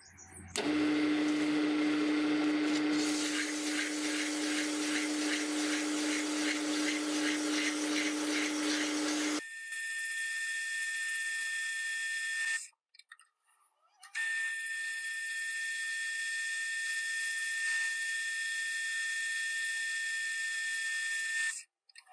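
Electric power tools running in several edited takes. First a motor runs steadily under a rough grinding noise for about nine seconds. Then a higher-pitched whine runs twice, each take cutting off suddenly.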